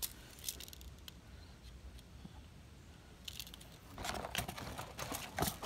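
Handling of metal yo-yo automatic fishing reels in their cardboard box: a few light metallic clicks, then from about four seconds in a busier run of clinks and rustling as a reel is put back among the others.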